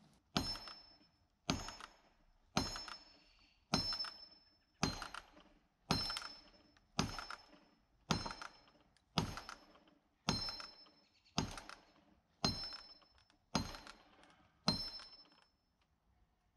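Fourteen evenly spaced strikes, about one a second, driving a felling wedge into the split trunk of a snag. Each blow lands with a thunk and a short metallic ring, and they stop about fifteen seconds in.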